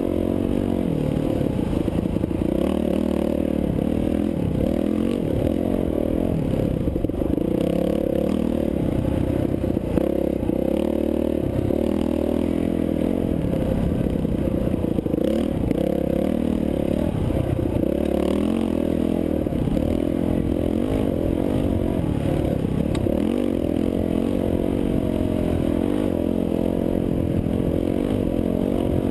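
Dirt bike engine running under throttle, heard from the rider's own onboard camera, its pitch rising and falling with throttle changes along the trail.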